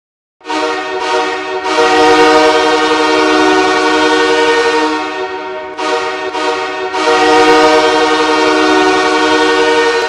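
Los Angeles Kings goal horn blasting in a pattern of two short blasts then one long one, played twice.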